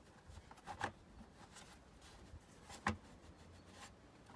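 Plastic engine cover of a BMW N46 engine being pressed back into place: a few light plastic knocks and clicks, the loudest a little before three seconds in.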